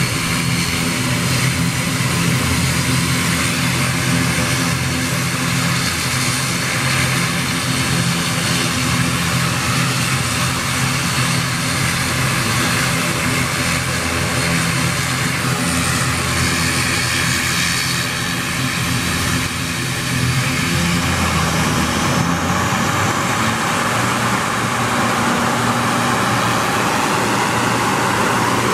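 Twin-turboprop ATR airliner running on the ground, a steady propeller drone with a low hum. About three-quarters of the way through, the low hum drops away and a broader, higher rushing sound takes over.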